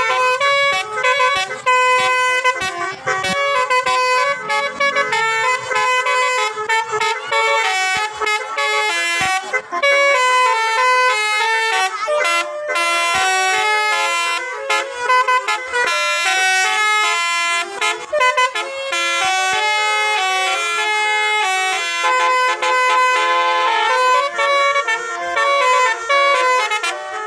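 Basuri-type telolet bus horn, a multi-tone air horn, playing a melody in a long run of stepped notes, almost without a break.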